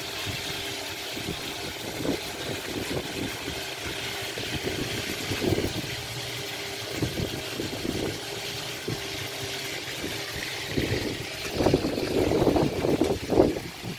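Irregular knife knocks and scrapes on a board as a fish is cleaned, over a steady hiss; the knocks come thicker and louder near the end.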